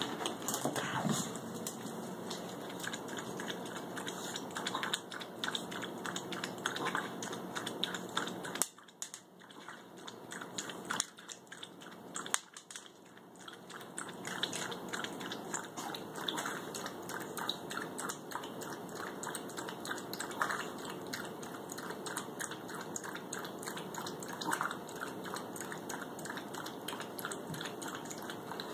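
Pomeranian crunching and chewing food, a dense run of small crunches and clicks, with a lull of a few seconds about nine seconds in.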